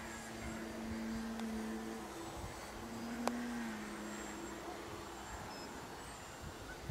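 Engine of a radio-controlled trainer model airplane in flight, a faint steady hum that rises a little in pitch about halfway through, then settles lower and fades toward the end. A single sharp click comes just past three seconds in, and wind rumbles on the microphone.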